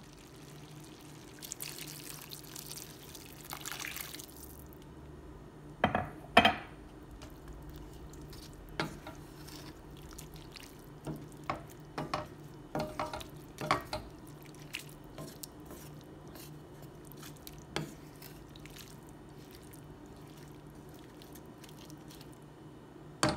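Water poured into a hot skillet of ground beef and vegetables, hissing for a few seconds near the start. Then a wooden spoon stirring the mixture, with scattered short knocks and scrapes against the pan.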